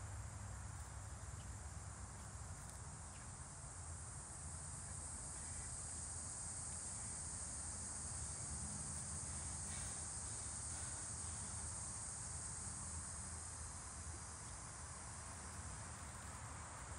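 Insects chirring steadily at a high pitch, faint and unbroken, over a low faint rumble.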